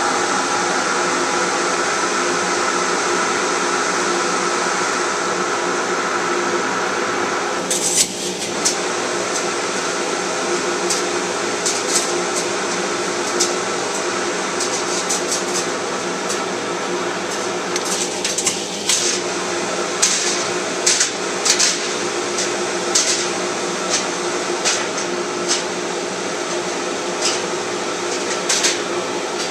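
Shop vacuum running with a steady whine. From about eight seconds in, an angora sweater is pulled against the nozzle, adding irregular sharp clicks and flaps. The suction note dips briefly twice as the fabric partly blocks the intake.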